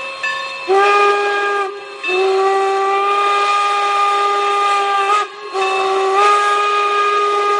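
Steam whistle of Norfolk & Western No. 475, a Baldwin 4-8-0 steam locomotive, blowing three blasts: a short one about a second in, then a long one of about three seconds, then another long one that runs on, its pitch rising slightly near the end of the second blast.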